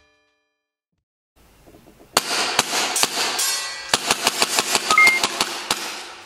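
Tokyo Marui S&W M&P9 gas blowback airsoft pistol firing a rapid string of shots, each a sharp clack of the slide cycling. There are about a dozen shots in two quick runs with a brief pause between them.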